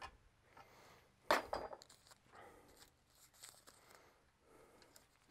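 Quiet handling noise as hands work at a tom drum's taped rim, with one short, sharp sound a little over a second in.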